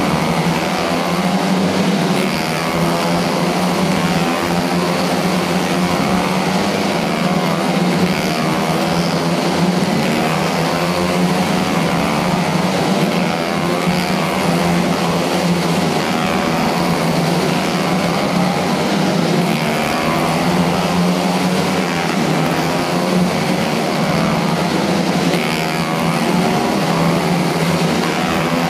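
Engines of several small race cars running together as they lap, with many overlapping pitches rising and falling through the corners, echoing in a large hall.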